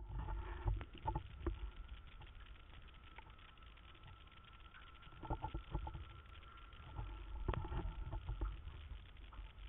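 Water noise from an underwater camera: low rumbling surges with sharp clicks and knocks, over a faint steady high whine. The surges are loudest at the start, about five seconds in, and again around seven to eight seconds.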